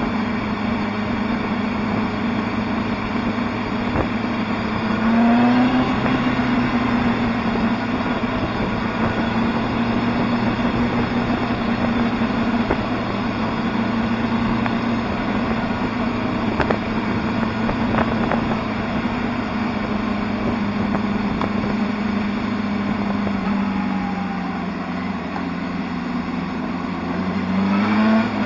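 Motorcycle engine under way, heard from on the bike: it revs up about five seconds in, holds a steady pitch while cruising, eases off and drops lower toward the end, then revs up sharply again just before the end.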